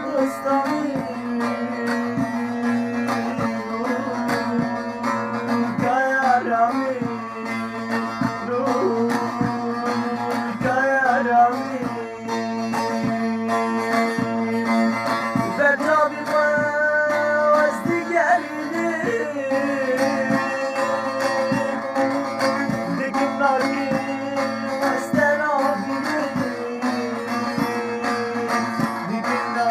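A sad song: a plucked string instrument plays over steady sustained notes, with a voice singing ornamented, wavering phrases at intervals.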